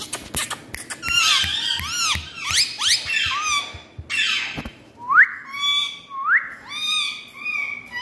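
Indian ringneck parakeets calling: a run of squeaky, warbling chirps, a short harsh burst about halfway through, then two sharp rising whistles about a second apart, with a few clicks at the start.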